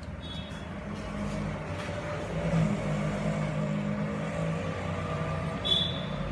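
A steady low hum of a running motor that wavers a little in pitch. A short high chirp comes near the end.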